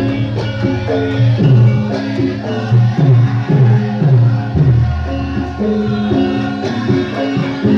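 Javanese gamelan played live for lengger dancing: steady ringing metallophone notes over repeated low hand-drum strokes that dip in pitch.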